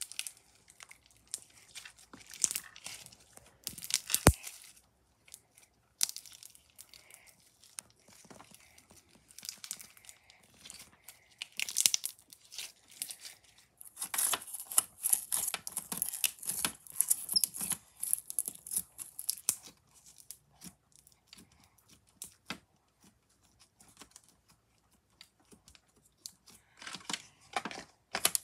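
Clear slime packed with small beads being squeezed and stretched by hand, giving irregular crackling and popping in bursts, busiest through the middle. Near the end a plastic slime tub is handled as its lid is pressed on.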